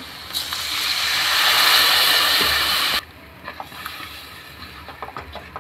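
Water poured into hot oil and fried onion-spice masala in a kadhai, hissing and sizzling loudly and then stopping abruptly about three seconds in. This is followed by quieter stirring of the masala with a plastic spoon.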